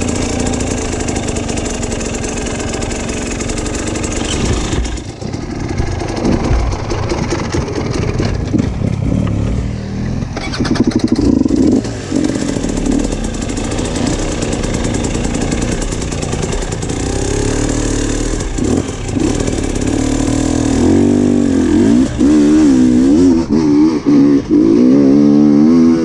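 Dirt bike engine running under load on a trail ride, the revs rising and falling as the throttle is worked. It gets louder near the end with repeated quick revs.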